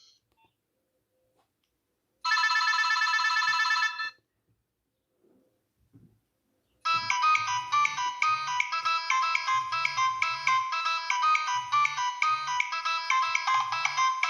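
Nokia 6101 flip phone ringtones from the phone's speaker. A short, fast-pulsing trill tone sounds for under two seconds about two seconds in. After a pause, a new ringtone melody with a pulsing bass line starts about seven seconds in and keeps playing.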